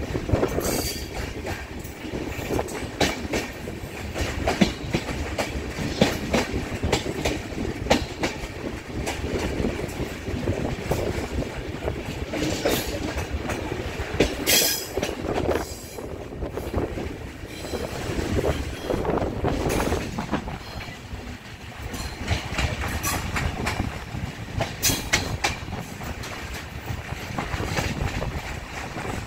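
A moving express passenger train heard from on board: the coaches rumble steadily while the wheels clack irregularly over rail joints and points, with a brief sharper hiss about halfway through.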